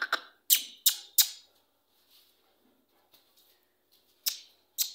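A large bully dog's breathing in a few short, sharp puffs: three close together in the first second and a half, two more near the end.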